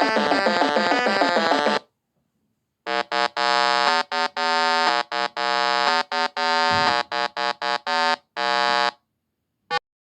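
Electronic synthesizer music that stops about two seconds in. After a short pause a steady buzzing electronic tone of one fixed pitch switches on and off in an irregular stutter for about six seconds, then gives one short blip near the end.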